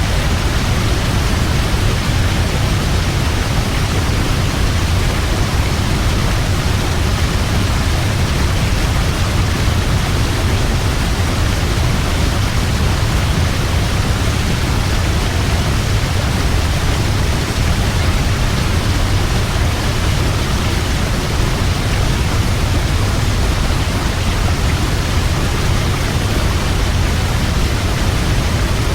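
Waterfall: a steady, loud rush of falling water with a deep low rumble, unchanging throughout.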